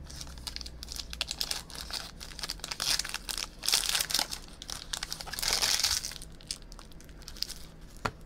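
Foil trading-card pack wrapper crinkling and being torn open by hand, a run of crackles with louder rustling bursts about three, four and six seconds in.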